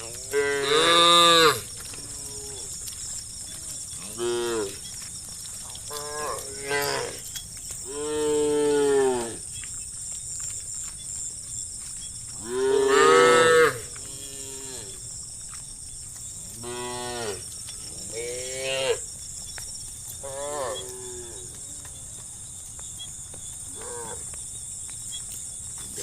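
A herd of cattle mooing: about ten separate moos, one after another, each rising and falling in pitch. The loudest come about a second in and about thirteen seconds in, over a steady high hiss.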